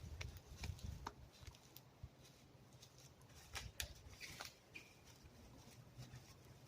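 Faint, scattered crackles and clicks over a low rumble.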